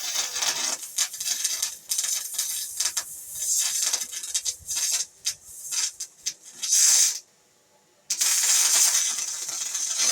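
Electric arc welding: a crackling, sizzling arc in short runs that stop and restart, cutting out suddenly about seven seconds in and striking up again about a second later.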